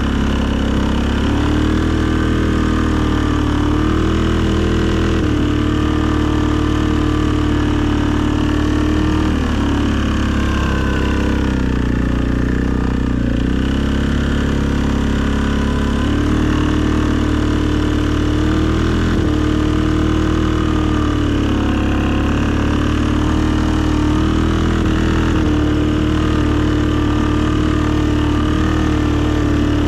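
2020 Suzuki KingQuad ATV's single-cylinder engine running steadily at a low speed, its pitch easing up and down a little several times.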